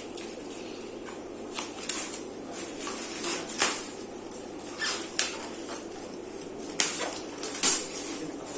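Plastic-wrapped frozen bloodworm packs being handled: a string of short crinkles and light knocks, the loudest about three and a half seconds in and again near the end.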